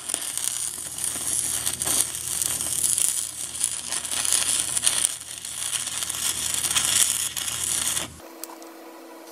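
Stick-welding arc crackling and sizzling steadily as a weld is laid on a hydraulic pump's worn splined input shaft and coupling, cutting off suddenly about eight seconds in when the arc is broken.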